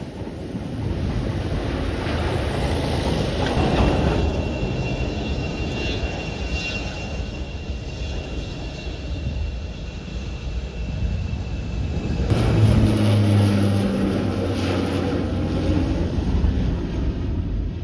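Aircraft engines across an airfield with wind rumbling on the microphone: a steady high whine from a taxiing Gulfstream IV business jet, then, about twelve seconds in, the steady low drone of a Bombardier Q400 turboprop's propellers overhead.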